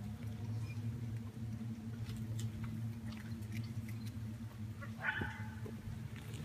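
A steady low droning hum, one held pitch with overtones, that eases off near the end, with faint scattered clicks and a short higher-pitched sound about five seconds in.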